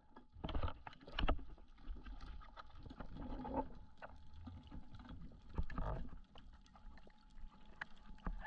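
Underwater water noise around a speargun-mounted camera as a freediver swims upward: irregular swishing surges of water, loudest about half a second in, around a second in and near six seconds, with bubbles.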